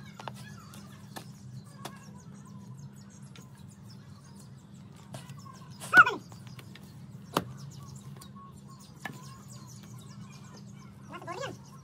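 A hoe blade striking and chopping into dry soil: sharp single chops every second or few seconds. A loud short pitched call comes about six seconds in and another near the end, over a steady low hum.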